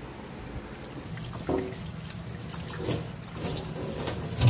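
Kitchen scissors snipping water spinach stems in a few short sharp snips, then tap water running onto the leaves in a plastic colander as a hand presses them. A loud dull knock near the end.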